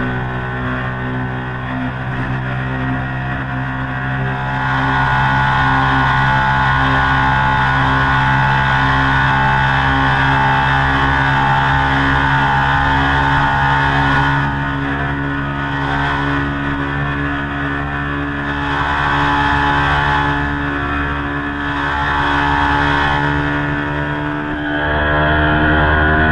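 Ducati Panigale superbike with a Termignoni exhaust running at a steady cruise, its engine note drifting gently up and down in pitch. Near the end the note briefly dips, then comes back louder.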